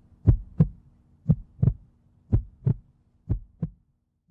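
Heartbeat sound effect: four lub-dub pairs of low thumps, about one pair a second, stopping just before the end.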